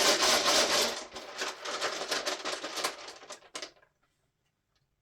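Dice rattling as they are shaken, a dense clatter of small clicks for nearly four seconds that thins to a few separate clicks before it stops.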